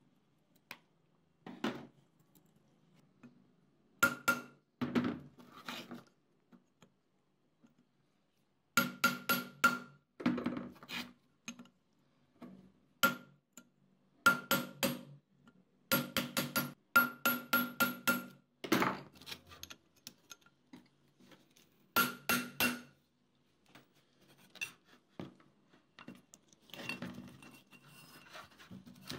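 Sharp metal taps in quick runs on an old exhaust fan's steel motor housing, each ringing briefly, as the end cover is worked loose from the body. Lighter rattling of the loosened parts near the end.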